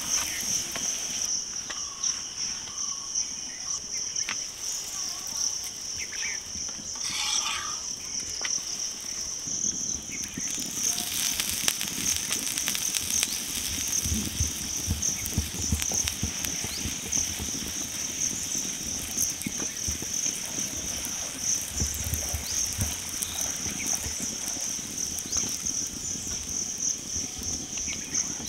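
Steady, high-pitched chirring of insects, with a faint fine crackling of a ghee-brushed paratha frying on an iron tawa from about ten seconds in.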